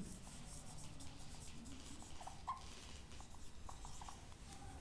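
Marker pen writing on a whiteboard: faint scratching strokes, with a few short squeaks in the middle and near the end.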